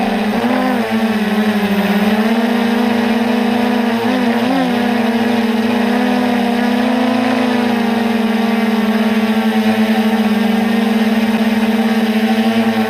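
Electric motors and propellers of a multicopter buzzing at a steady pitch in flight, heard close up from a camera on board; the pitch wavers briefly about half a second in and again around four seconds in as the copter manoeuvres.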